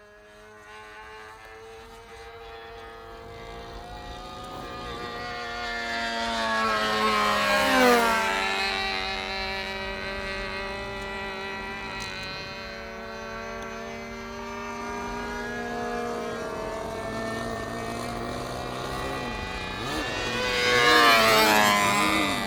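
Small model aircraft engine buzzing at a steady high pitch as the plane flies past twice. The pitch drops as it goes by about eight seconds in, and it comes close again near the end.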